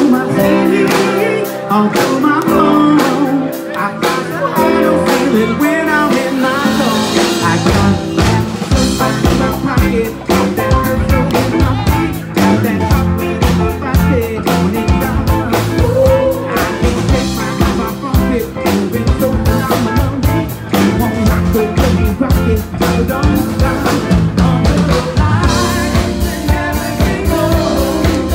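Live rock band playing, with electric guitar and a drum kit. The bass and drums come in fully about four seconds in.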